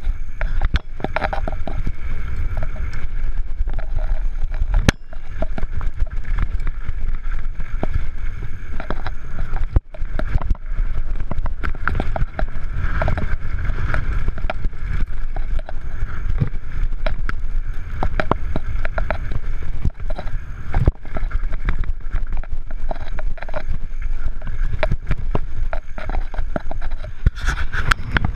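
Canyon Torque FRX downhill mountain bike descending a rough gravel trail: wind buffeting the action-camera microphone over tyre noise on loose stones, with a constant stream of rattles and knocks from the bike frame, chain and suspension.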